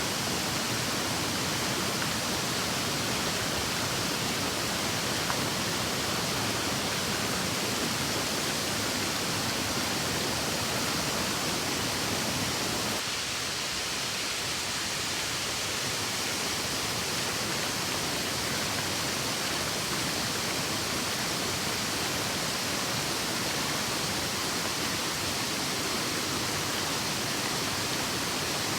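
Waterfall, a steady rush of falling water, slightly quieter from about halfway on.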